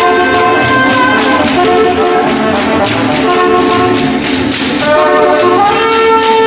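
Small live band playing: trumpets and a trombone sound held chords over an upright bass and a strummed small guitar, with a steady beat.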